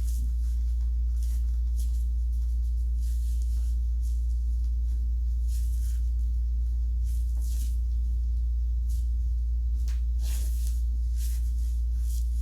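A steady low electrical hum, with faint, irregular rustling and brushing from hands working the patient's foot and ankle against the treatment table.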